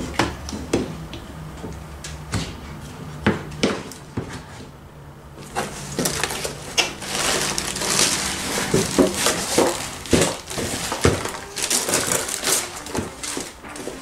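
Cardboard box and a plastic-wrapped light being handled: scattered knocks and scrapes on the cardboard, then from about six seconds in dense crinkling of the plastic bag as the light is pulled out of the box.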